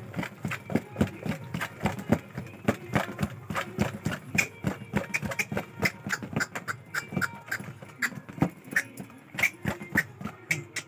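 Rapid, irregular clicking, several clicks a second, with a few short high chirps in between.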